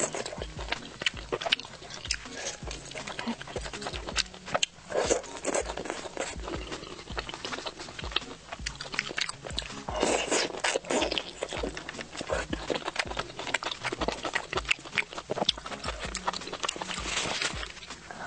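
Close-miked ASMR eating of a Boston lobster claw: wet chewing and smacking mouth sounds with many sharp clicks and crackles.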